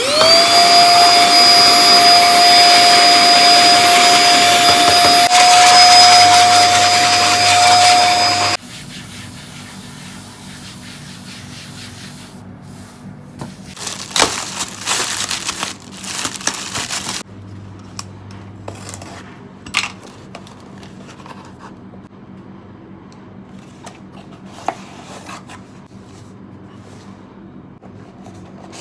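A small electric kitchen appliance motor spins up with a rising whine, runs steadily and loud for about eight seconds, then cuts off suddenly. Quieter clatter and knocks follow a few seconds later.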